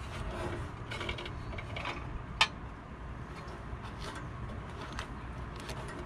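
Leather-gloved hands handling and untwisting stranded wires inside a metal wall-pack light housing: soft rubbing and rustling with small scattered clicks, and one sharper click about two and a half seconds in.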